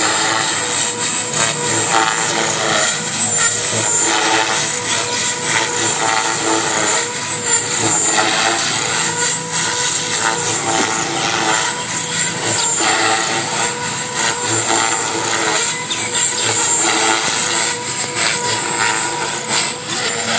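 Radio-controlled model helicopter flying aerobatics, a steady high whine from its motor and rotor blades with the level wavering as it manoeuvres.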